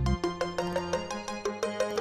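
Instrumental music with a quick, steady beat over sustained pitched notes.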